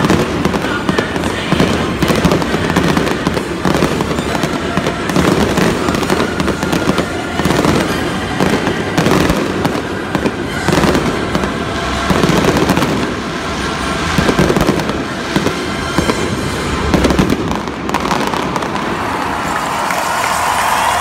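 Aerial fireworks shells bursting in rapid, continuous volleys of booms and crackles, with music playing underneath. Near the end the bursts thin out.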